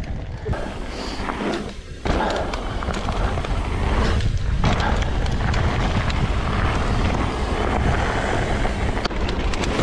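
Mountain bike rolling fast over a dirt trail: tyre noise and the bike's rattles and clicks under a heavy rumble of wind on the helmet or handlebar camera's microphone.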